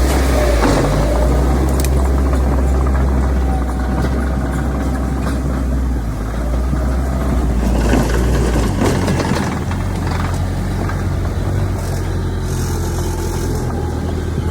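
Heavy diesel engines of earthmoving machinery running steadily. The engine note shifts about nine seconds in, with louder bursts of noise near the start and about eight seconds in.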